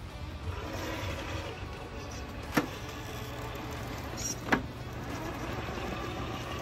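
Axial SCX10 III Base Camp RC rock crawler, with a Hobbywing Fusion SE motor, running with a steady electric-motor whine as it crawls over rocks. Two sharp knocks come about two seconds apart as it bumps on the rocks.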